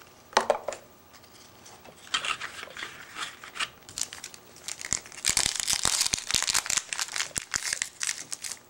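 Foil wrapper of a 2010 Bowman Chrome baseball card pack crinkling in short bursts as it is picked up and handled, then crinkling and tearing more loudly from about five seconds in as it is torn open.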